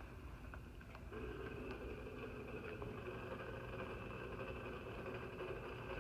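Faint steady machine hum, with a low, steady tone coming in about a second in and a few faint ticks.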